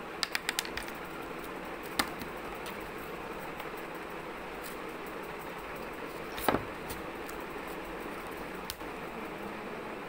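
Light clicks and knocks of small craft materials being handled on a tabletop: a quick run of about five clicks near the start, a single tap about two seconds in and a louder knock a little past the middle, over a steady background hiss.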